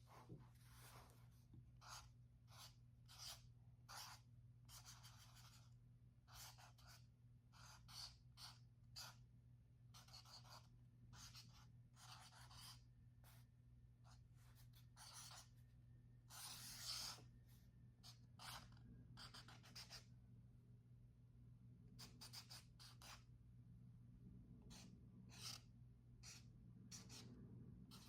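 Alcohol markers stroking across sketchbook paper: faint, short, irregular scratches a fraction of a second each, over a low steady hum.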